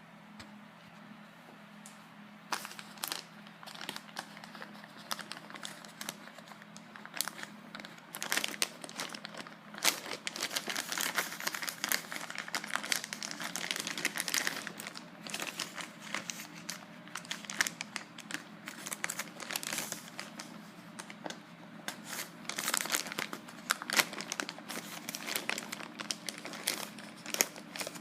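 Plastic package wrapping and packaging tape being crinkled and peeled off by hand: continuous irregular rustling and crackling, busiest in the middle and again near the end.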